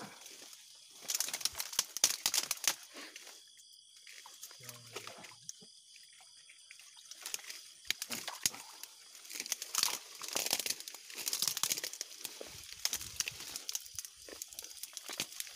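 Irregular rustling and crackling in bursts, from leafy plants being pushed aside and a slatted fish trap being handled close to the microphone.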